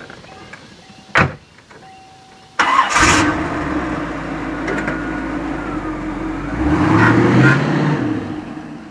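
A car engine starts up suddenly about two and a half seconds in, then runs steadily. It revs up briefly near the end before fading. Before it, a faint repeating beep and a single thump.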